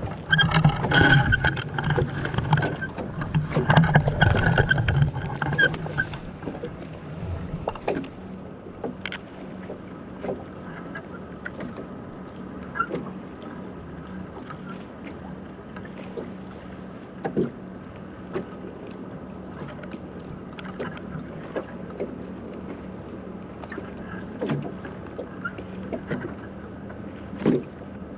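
Sounds of a small rowboat at sea: a steady bed of water and wind noise with scattered light knocks against the hull. A steady low hum and frequent knocking in the first few seconds stop about six seconds in.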